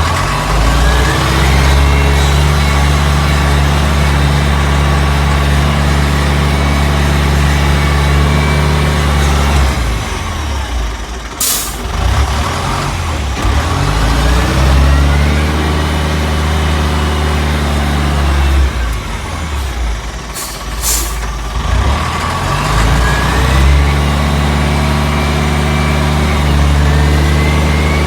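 Cat 930 wheel loader's four-cylinder Cat 3304 diesel running under load as the machine is driven, the engine dropping back twice and pulling up again with a rising whine each time. Two short hisses come about eleven seconds in and again about twenty seconds in.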